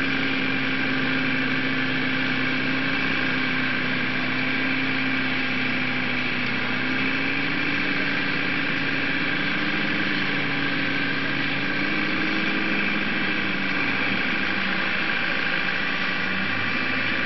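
An engine running steadily, its pitch drifting slightly up and back down.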